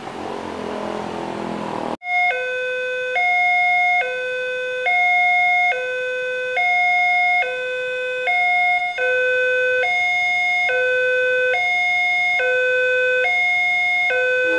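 Electronic railway level-crossing warning alarm from a pole-mounted loudspeaker, sounding a loud two-tone chime that switches between a higher and a lower tone a little under once a second. It starts suddenly after about two seconds of rumbling noise and signals that a train is approaching and the barriers are closing.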